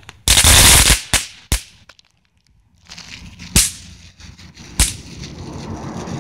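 Small fireworks going off: a loud burst of noise lasting under a second, then four sharp pops spread over the next few seconds.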